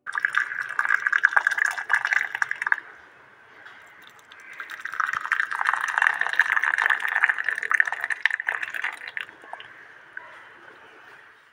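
Milk tea bubbling at a rolling boil in a steel saucepan for a few seconds. After a short lull, tea is poured into a glass cup in a steady splashing stream that tapers off near the end.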